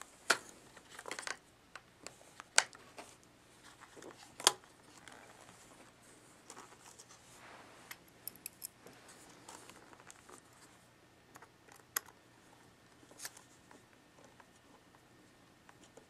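Scattered small clicks and taps of metal parts being handled: a MacBook's L-shaped hard-drive bracket and a small screwdriver being fitted into the battery bay. A few sharp clicks stand out among fainter ticks.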